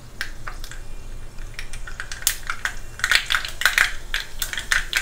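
Mustard seeds popping in hot coconut oil in a small pan, the tempering stage where the bursting seeds show that the oil is hot enough. Scattered sharp pops and crackles, growing much thicker about three seconds in.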